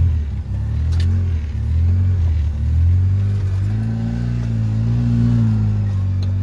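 Quad (ATV) engine running as the machine rides slowly along, its pitch rising about four seconds in and easing back near the end, with a sharp click about a second in.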